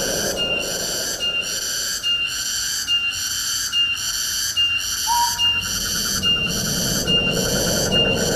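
Tropical forest ambience: a high-pitched pulsing call repeats evenly about one and a half times a second over the low rush of wind, and a single short whistled note sounds about five seconds in.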